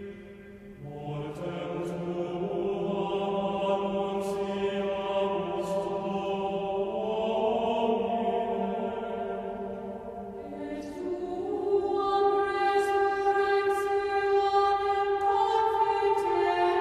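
Sacred church music in slow, sustained chords, several notes held together and changing every few seconds. A few short, high clicks sound over it.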